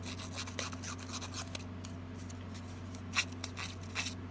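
Paper-distressing tool scraped in short strokes along the edge of a strip of patterned designer paper, giving soft rasping scrapes with a couple of sharper clicks about three and four seconds in.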